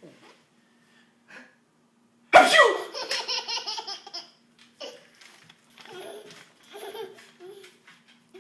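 A man's single loud sneeze about two seconds in, followed at once by a toddler's quick burst of laughter, then further bouts of giggling and laughing.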